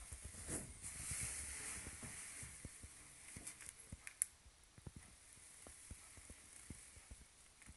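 Faint, irregular light clicks and rattles from a Suzuki TL1000R headlight whose projector (DE) lens has come loose inside the housing. A soft hiss runs for about two seconds near the start.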